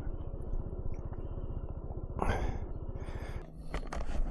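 Kymco 125cc motor scooter's engine idling with a rapid, even low putter. About three and a half seconds in, the putter stops and a steadier low hum remains, with a few knocks near the end.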